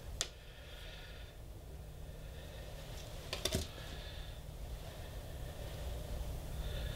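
A few faint clicks of a metal thrust washer being handled while it is coated with grease: one just after the start and a short cluster about three and a half seconds in, over a steady low hum.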